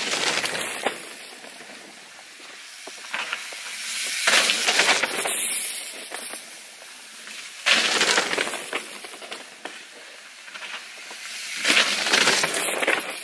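Mountain bikes passing close by one after another on a loose dirt trail: knobby tyres rolling and skidding through the dirt, with a few sharp knocks. Four passes about every four seconds, each rising to a loud rush and fading.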